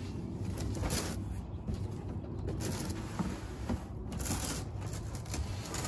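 Cardboard box being set down and its flaps pulled open, with several bouts of rustling and scraping cardboard.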